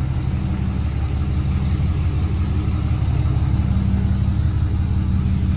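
Pickup truck's Cummins turbo-diesel engine running at low, steady revs while the truck creeps forward at walking pace to park, heard from inside the cab.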